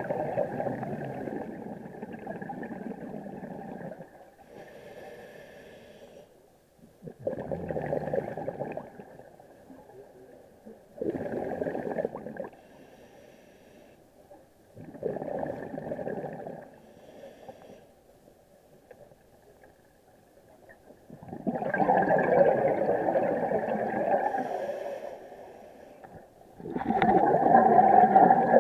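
Scuba regulator breathing recorded underwater: exhaled bubbles gurgle out in bursts every few seconds, with a fainter hiss of inhaling through the regulator between them. The last two exhalations are longer and louder.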